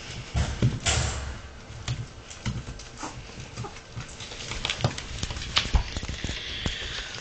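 Dog and puppy claws tapping and scrabbling irregularly on a hardwood floor as they play-wrestle, with a few dull knocks.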